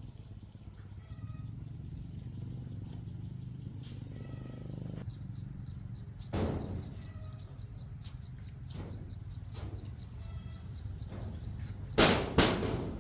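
A low steady hum with a dull knock about halfway and a few light clicks, then two loud sharp knocks in quick succession near the end.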